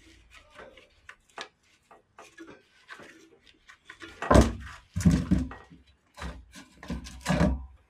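Metal tools and clutch parts clicking, then knocking and clanking heavily several times in the second half, as the clutch on a Fiat Cinquecento 900 is pried and knocked loose from its dowel pins.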